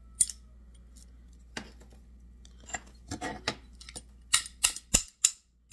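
A small hammer tapping lightly on the rusted steel of old locking pliers (vise grips) to work penetrating oil into the seized parts and knock rust loose. There is a click just after the start and another about a second and a half in, then a quick run of metal taps, two or three a second, from about three seconds in.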